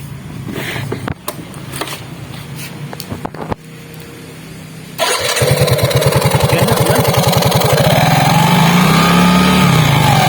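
A few clicks and knocks, then about halfway in a 115 cc Yamaha automatic scooter engine starts suddenly and runs, pulsing, and is revved. A whine rises and falls with the revs: the turbo-like 'ngiung' from a whistle plate mounted by the CVT cooling fan.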